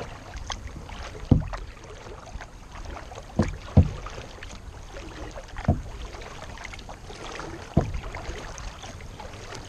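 Kayak paddling: the paddle works through the water with a sharp knock or splash about every two seconds, five in all, over a low wind rumble on the microphone.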